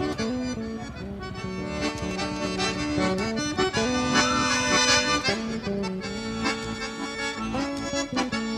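Instrumental background music of held chords and melody notes that change every second or so.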